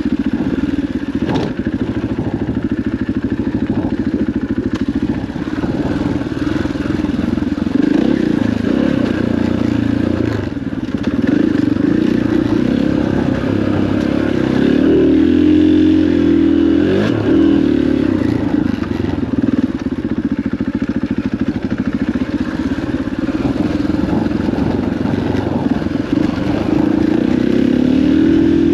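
KTM 500 EXC dirt bike's single-cylinder four-stroke engine pulling the bike along a dirt trail, its revs rising and falling with the throttle, with rattling and scraping from the tyres and loose dirt. The clutch is hot and dragging a little, so the bike is slow to accelerate.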